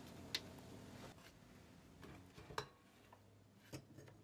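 Near silence: room tone broken by three faint, brief clicks.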